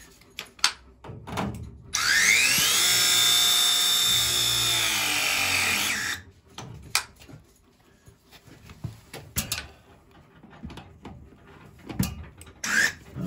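Battery-powered copper press tool running one press cycle: its motor whines up in pitch, runs steadily for about four seconds, then winds down and stops as it crimps a copper press fitting. Scattered clicks and knocks from handling the tool before and after.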